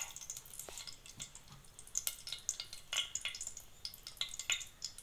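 Mustard seeds frying in hot coconut oil in a steel pan: a faint sizzle with irregular small crackles and pops as the seeds start to splutter.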